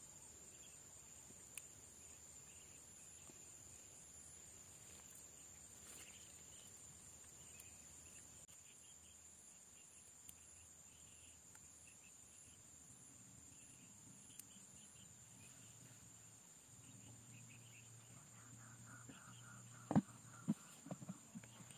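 Faint, steady high-pitched trilling of crickets or other insects in the vegetation. A low hum sets in near the end, and a few sharp clicks sound close to the microphone just before the end.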